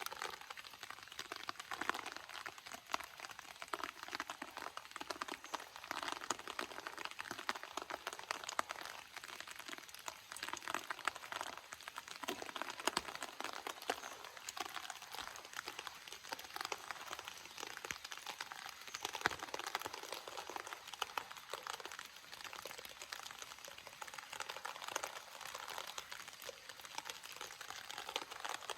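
Steady rain falling, a dense, even crackle of many small drop impacts with no lulls.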